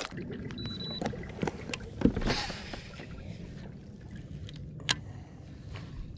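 Pedal-drive kayak moving along the water with a steady low hum, broken by a few sharp clicks and knocks of fishing gear being handled and a brief rustle about two seconds in.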